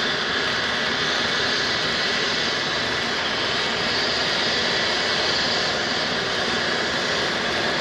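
Aircraft turbine engine running steadily: a constant whine over an even rushing hiss.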